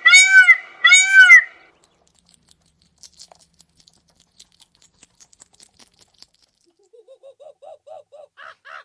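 Bird calls: two loud, pitched calls in the first second and a half, then a faint patter of small clicks, then a quick run of short notes rising in pitch towards the end.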